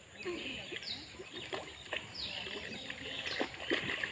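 A bird calling: a few short calls, each falling in pitch, about a second apart, over faint voices and a few sharp knocks.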